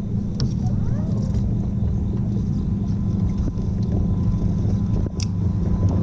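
Steady low rumble, with a thin steady whine above it and two short clicks, the second about five seconds in.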